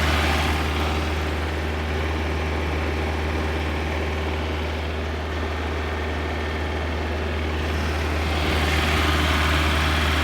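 Mitsubishi 4D33 four-cylinder diesel engine running steadily at idle, the engine that the owner says has a knocking sound. Its higher hiss fades about half a second in and comes back near the end.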